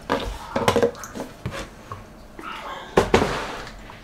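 Plastic food tubs being handled on a kitchen counter: scattered light knocks and taps of plastic lids and containers, with one sharper knock about three seconds in.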